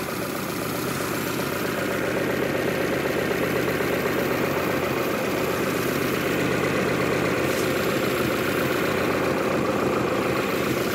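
Lada four-cylinder petrol engine idling steadily while fresh motor oil is poured into it as it runs, getting slightly louder over the first couple of seconds.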